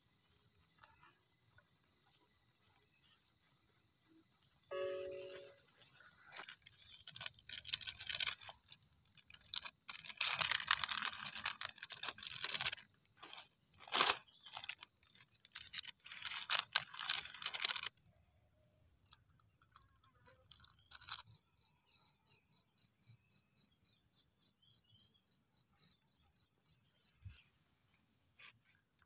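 Plastic instant-noodle seasoning sachets crinkling and being torn open, in loud irregular bursts from about five seconds in until a few seconds past the middle. Insects chirp steadily throughout, and near the end one call pulses fast and evenly, about three to four times a second.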